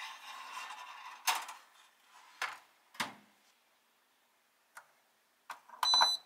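A ceramic gratin dish scraping onto the wire rack of a BALMUDA toaster oven, then a sharp clack and a few knocks as the oven door is shut, and clicks as the dial is turned. Near the end, a short cluster of clicks with a brief high tone.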